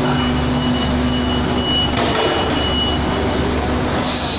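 Steady engine hum of a passenger train standing at the platform, with a sharp hiss of air starting near the end.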